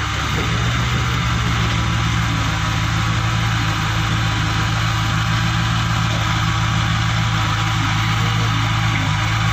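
Bull Challenger CH76 backhoe loader's Kirloskar diesel engine running at a steady speed under load as the front bucket pushes soil, a constant low drone.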